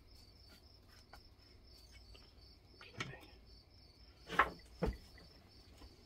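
Faint hand-tool work as the screws holding a homemade plug and flange over a two-stroke engine's exhaust port are tightened: a small click about three seconds in, then a knock and a low thud a second or so later. A steady high insect-like chirping runs underneath.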